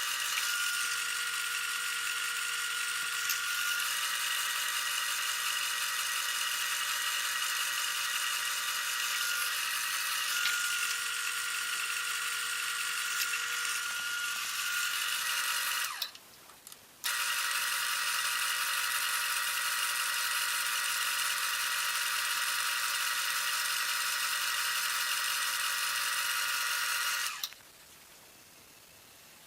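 Wood lathe running steadily with a motor whine and high hiss. It cuts out for about a second around the middle, runs again, then stops a couple of seconds before the end.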